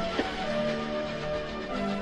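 Background music of held notes that change pitch about half a second in and again near the end, with a sharp click just after the start.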